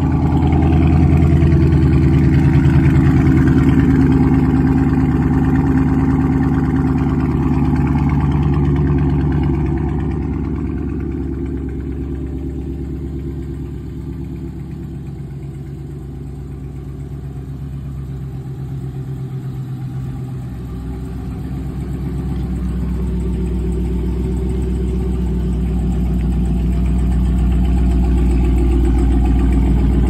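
Dodge Charger's 392 HEMI V8 idling steadily after a cold start, a deep continuous rumble. It grows quieter through the middle and louder again toward the end.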